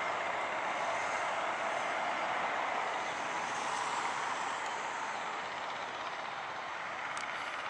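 Jet engine noise from a landing Boeing 767-300: a steady rush that slowly fades.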